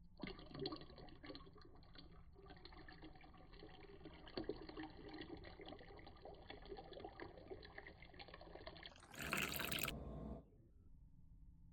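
Liquid being poured, filling a vessel, for about nine seconds, then a louder, harsher rush lasting about a second that cuts off.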